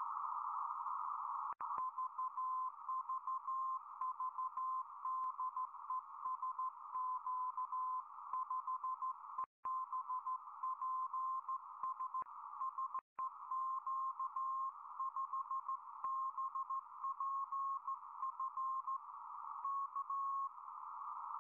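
Morse code (CW) tone of about 1 kHz keyed on and off, from a simple 2.4 GHz transmitter relayed by the QO-100 satellite and heard through a WebSDR receiver over a narrow band of steady hiss. The audio cuts out completely three times: recording skips the uploader puts down to the laptop's 2.4 GHz wifi, which make the Morse hard to read.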